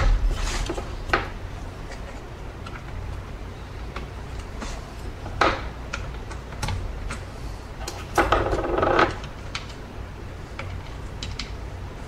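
Handling sounds of small screws and a plastic vacuum housing: scattered light clicks and knocks as screws are picked from a metal parts dish and fitted into the housing, with a longer, louder rattle of about a second around eight seconds in.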